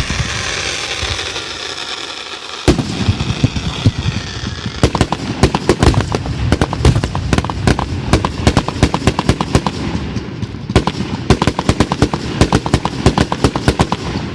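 A firework fuse hisses for about two and a half seconds. Then a long, rapid string of firecracker-like bangs and crackles sets off suddenly, with a brief lull about eleven seconds in.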